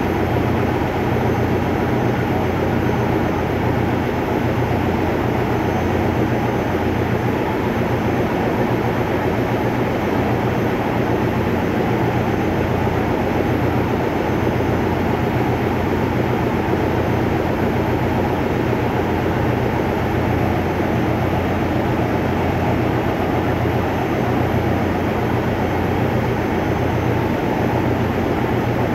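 Steady, loud drone of running diesel machinery in a ship's engine room, a low hum under a constant mechanical rush.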